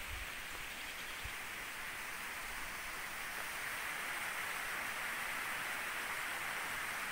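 Steady outdoor hiss, growing a little louder about halfway through, with a couple of faint low thumps near the start.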